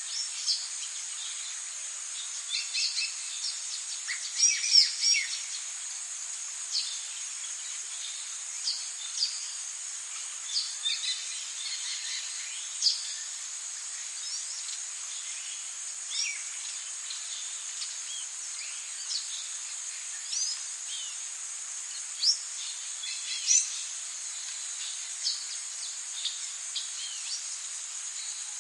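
Tropical rainforest ambience: a steady, high-pitched insect drone under scattered short bird calls and chirps, with a brief busy flurry of calls about four to five seconds in.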